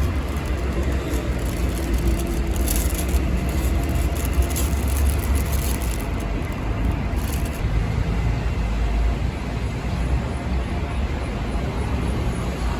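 Road vehicle running, a steady mix of engine and road noise with a deep rumble.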